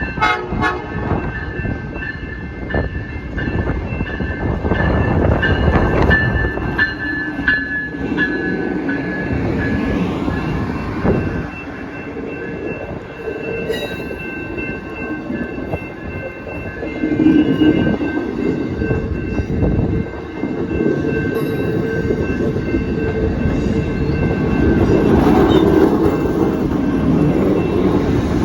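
Amtrak Hiawatha passenger train passing close by, its wheels clicking over the rail joints, with its horn sounding as steady tones over the rumble of the cars.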